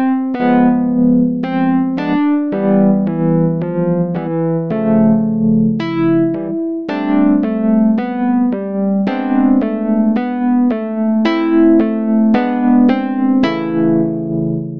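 Background piano music: a slow melody of single notes and chords, one struck every half second to a second, each ringing and fading before the next.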